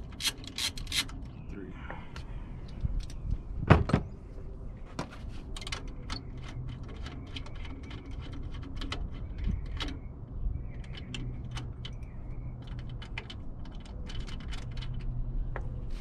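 Socket ratchet clicking in quick runs as 10 mm bolts are backed out, with one louder metallic knock about four seconds in.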